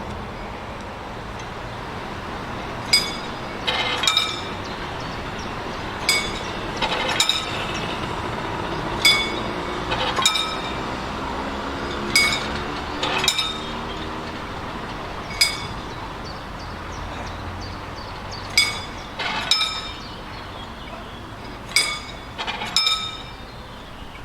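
Sharp metallic clinks with a short ringing tone, mostly in pairs about a second apart, the pairs coming about every three seconds over a steady low rumble: typical of a slowly moving train's wheels crossing rail joints.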